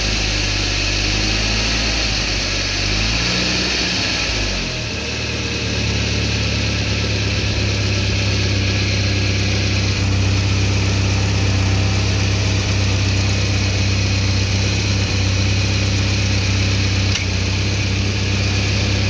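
Car engine running: its speed rises and falls twice in the first few seconds, then it settles into a steady idle.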